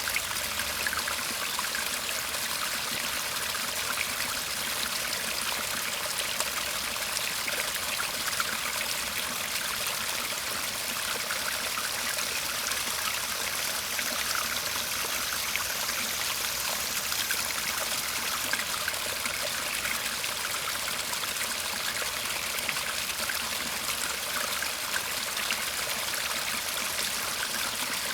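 A shallow garden brook babbling and trickling steadily.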